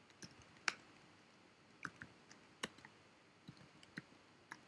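Faint computer keyboard keystrokes: about ten irregular clicks as a line of code is typed.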